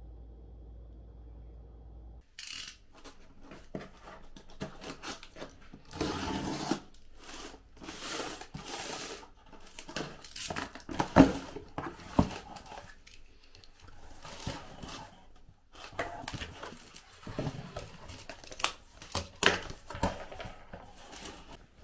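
Handling noises: irregular rustling, crinkling and tearing with scattered sharp clicks and knocks. They start about two seconds in, with one loud knock about halfway through.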